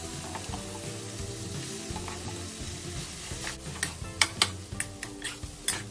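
Rice and vegetables sizzling in a hot wok over high heat. From a little past halfway, a metal spatula scrapes and knocks against the wok in a quick run of sharp strokes as the rice is stirred and broken up.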